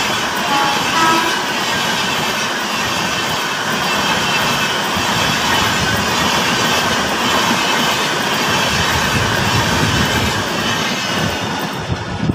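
Kochuveli–Mangalore Antyodaya superfast express passenger coaches passing at high speed close by: a loud, steady rush and rumble of wheels on the rails, easing slightly near the end as the last coach goes by.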